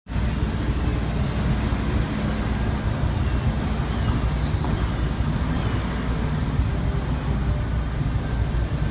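Road traffic: a steady low rumble of passing cars.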